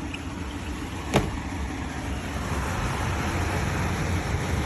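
COSTWAY 14000 BTU portable air conditioner running with a steady rush of air and a low hum, getting a little louder partway through, with a single sharp click about a second in. The blower runs but the compressor seems not to engage: the unit only moves room-temperature air, a sign the compressor may not be working.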